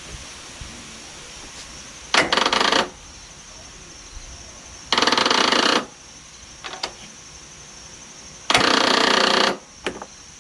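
Electric starter on a Kohler Courage lawn tractor engine rattling fast in three short tries of about a second each, about three seconds apart. The battery is too weak to turn the engine over properly.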